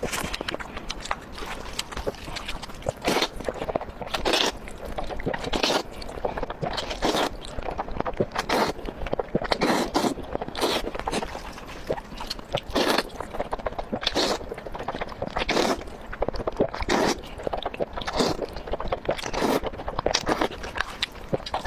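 Close-miked eating: repeated crisp bites and crunchy chewing, a crunch about every second.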